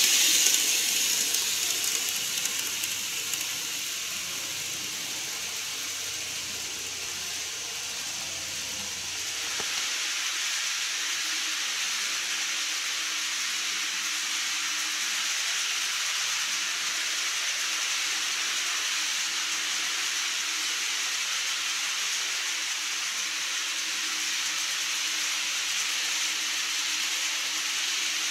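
TOMIX N-gauge model train running on plastic track: a high-pitched hissing whir of motor and wheels that fades over the first few seconds as the train moves away. After a change about ten seconds in, a steady hiss of the train running unseen on the layout.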